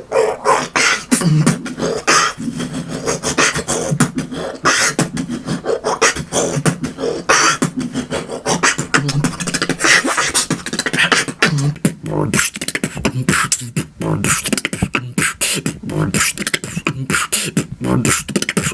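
Beatboxer imitating the Transformers transforming sound effect by mouth: a fast, unbroken run of clicks and rasping K and R sounds, getting tighter and more clipped about two-thirds of the way through.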